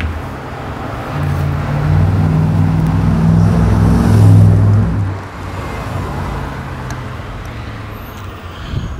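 A motor vehicle's engine running close by. It grows louder from about a second in, is loudest around four seconds in, and drops away a little after five seconds.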